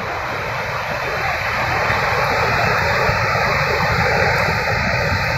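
Steady roar of water rushing over a dam spillway, slowly growing louder.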